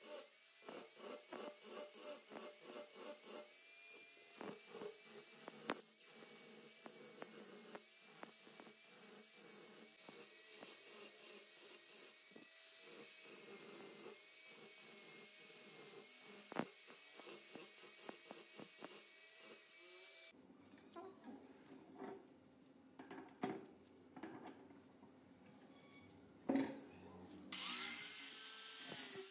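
Angle grinder with an abrasive disc grinding the steel of a hammer head, a steady high whine with grinding noise whose pitch wavers as the disc is pressed and moved. About two-thirds through it stops abruptly, leaving a quieter stretch with a few knocks, and the grinding starts again near the end.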